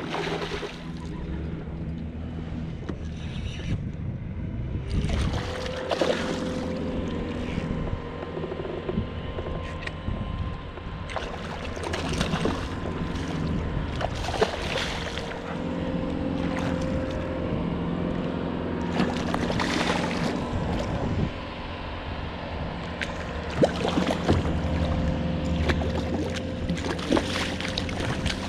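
Hooked fish thrashing and splashing at the water's surface beside a kayak, in several separate bursts of splashing, the busiest near the end.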